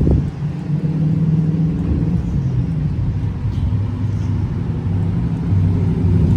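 Semi-truck running down the road: a steady low engine drone with road noise.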